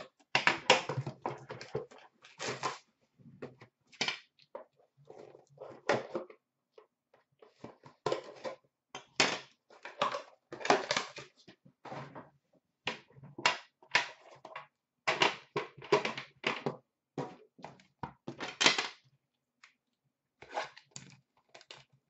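Plastic shrink-wrap on sealed trading-card boxes being crinkled and torn by hand, in irregular bursts with pauses, with occasional knocks of boxes being handled.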